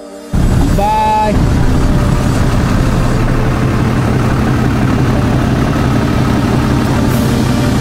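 Lifted pickup truck's engine running steadily as it rolls past at low speed, starting abruptly. A short pitched sound rises and falls about a second in.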